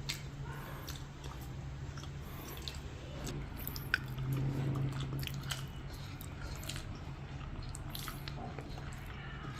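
Close-up eating sounds: chewing and biting food, with small wet mouth clicks and smacks scattered through, over a steady low hum.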